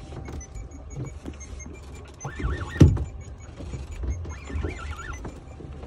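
Spinning reel being cranked against a fish pulling on a bent rod, over a steady low rumble, with one sharp knock about three seconds in.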